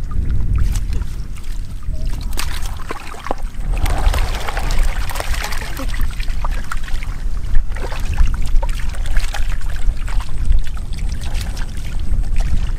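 Wind buffeting the microphone in a gusting low rumble, with scattered splashes and sloshes of shallow muddy water.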